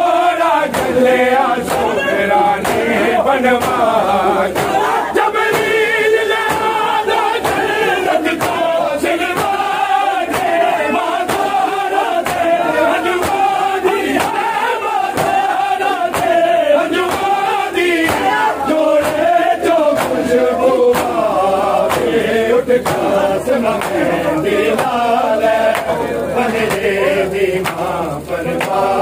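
A group of men chanting a noha in unison, the melody rising and falling, over a steady rhythm of sharp chest-beating strikes (matam) from the mourners.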